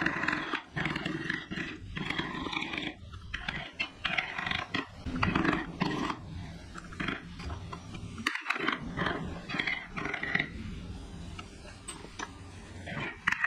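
Wood being carved with a carving tool: an irregular, rough noise that surges and drops, with scattered sharp clicks.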